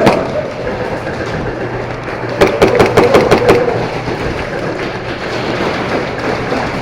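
A burst of rapid airsoft gunfire, about seven shots a second for roughly a second, a couple of seconds in, over a steady background din of play.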